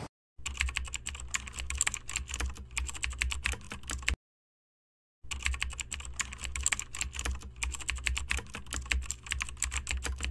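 Keyboard typing sound effect: rapid key clicks in two runs, broken by about a second of dead silence near the middle.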